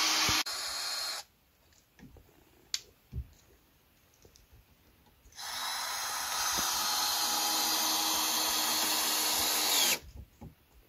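Power drill running steadily in two stretches, a short one that stops about a second in and a longer one of about four and a half seconds near the end that cuts off suddenly, with a few knocks in the quiet between.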